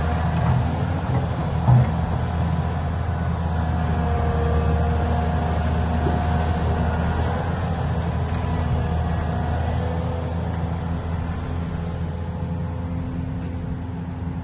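Heavy diesel construction machinery running steadily with a low drone, a faint whine rising and falling above it, and one knock about two seconds in.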